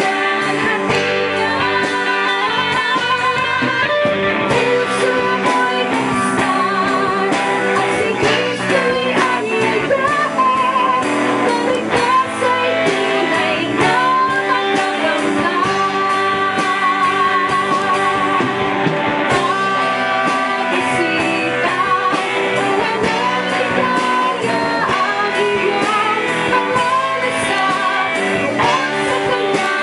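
Live worship song in Tagalog: a woman's lead vocal through a microphone over electric guitar and bass guitar, her held notes sung with vibrato.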